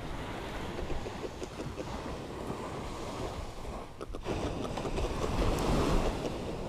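Sea waves washing against the shore, swelling louder about five seconds in, with wind buffeting the microphone.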